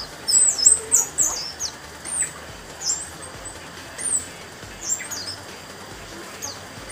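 Orange-headed thrush (anis merah) singing. A quick run of high, downward-sweeping notes comes in the first second and a half, then single sharp notes follow about once a second.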